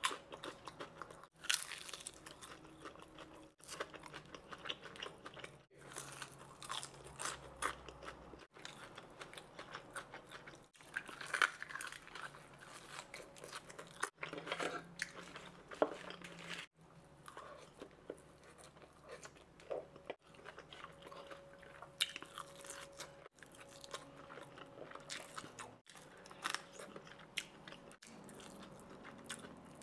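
Close-miked eating of Wingstop garlic parmesan fried chicken thighs: big bites crunching through the crisp coating, then chewing, in a string of crackles and clicks. Several brief silent drop-outs break it up.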